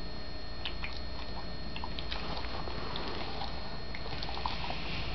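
Soft wet clicks and smacks of a dog licking and chewing a treat, scattered irregularly over a steady background hiss.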